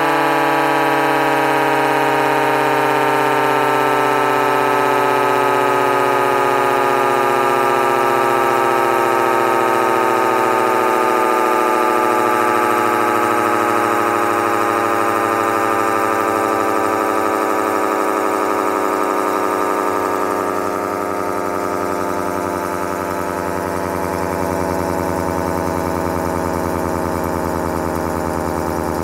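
Federal Model 78 dual-tone motor-driven siren coasting down, its two chords of tones sliding slowly and steadily lower in pitch as the rotor winds down.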